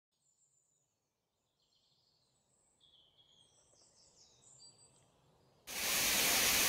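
Faint high bird chirps. About five and a half seconds in, the loud, steady rush of a waterfall cuts in abruptly.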